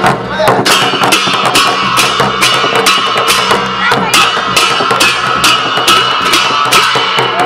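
Newar dhime drum and large brass hand cymbals playing a steady dance beat, the cymbals clashing about twice a second over a continuous metallic ring.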